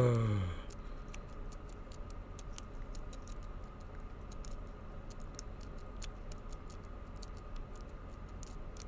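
Light, irregular clicking of a rake pick scraping over the pins inside a weathered Master Lock M5 padlock held under tension.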